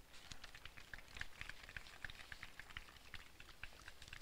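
Several people's footsteps tapping faintly and irregularly on the hard court surface as they walk up.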